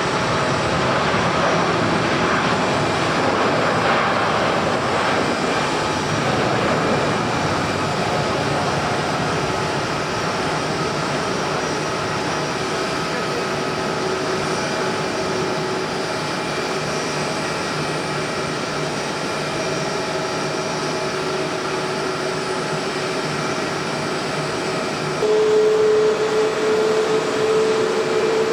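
Jet airliner engines running with a steady whine over a rushing noise. About 25 s in it gets louder and a new, slightly rising tone comes in.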